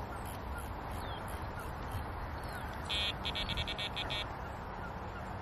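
Electronic carp bite alarm on a rod pod beeping: a short beep about three seconds in, then a quick run of about eight beeps, as the line moves over it. Steady outdoor background noise underneath.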